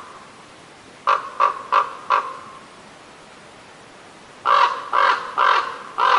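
Crow cawing: four quick harsh caws about a second in, then after a pause of two seconds a slightly slower run of four more caws near the end.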